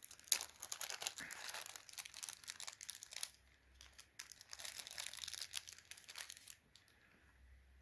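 Small plastic parts bag crinkling and rustling as hands pick standoffs out of a CPU cooler mounting kit, with small clicks among the rustle. It dies down about six and a half seconds in.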